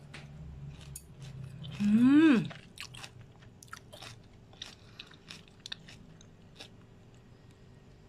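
Chewing on crisp stir-fried water spinach (morning glory) stems: a run of short, crisp crunches. About two seconds in there is a loud, short hummed 'mm' whose pitch rises and falls; it is the loudest sound.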